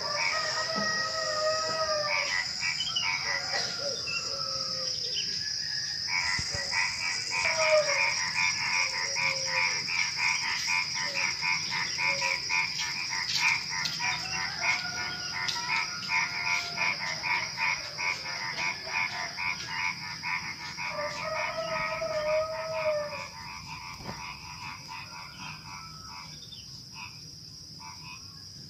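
A chorus of frogs croaking over a steady, high drone of crickets. A fast run of repeated croaks starts about six seconds in and stops a few seconds before the end, leaving mostly the cricket drone.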